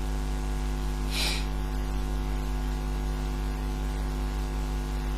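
Steady electrical mains hum picked up by the recording, a buzz of many evenly spaced tones, with a brief hiss about a second in.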